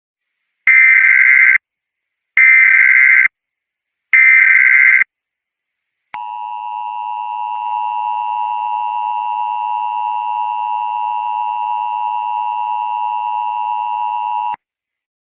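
Emergency Alert System header: three short bursts of screeching digital data, about a second each, then the two-tone EAS attention signal (853 and 960 Hz sounding together), held steady for about eight seconds before it cuts off. Together they signal that an emergency alert message is about to be broadcast.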